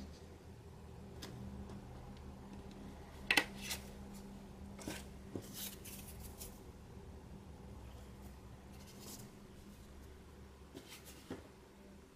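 Paper scraps being handled and pressed down on a wooden tabletop: a few faint rustles and taps, the sharpest about three seconds in, over a steady low hum.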